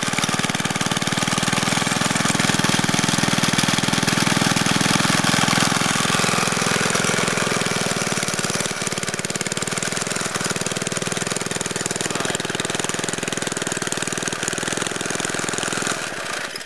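Briggs & Stratton 2 HP single-cylinder engine on a Trim-All lawn edger running steadily, then shutting off near the end.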